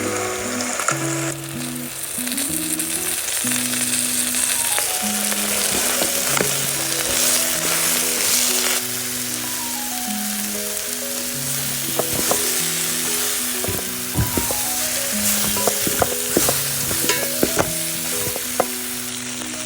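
Onions frying and sizzling in a pot as they are stirred, with a spoon knocking and scraping against the pot now and then, more often in the second half.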